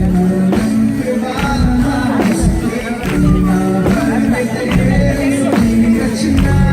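Loud live band music with singing over a steady beat.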